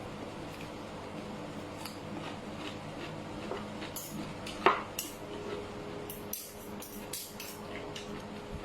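Spoon and utensils clicking against a bowl and plate while eating, with one louder clink about halfway through and a run of quick light clicks after it, over a steady low hum.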